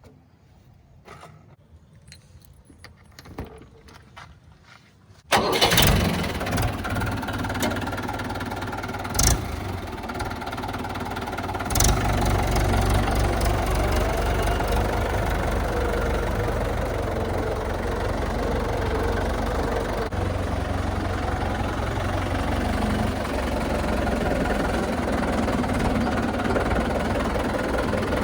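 Faint scattered clicks, then a heavy machine's diesel engine starts up suddenly about five seconds in. It runs on steadily, with two sharp knocks a few seconds after the start.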